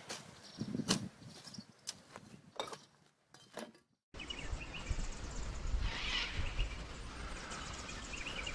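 A shovel scraping and striking dry dirt and ash several times. After a brief silence comes a steady low wind rumble, with birds calling over it.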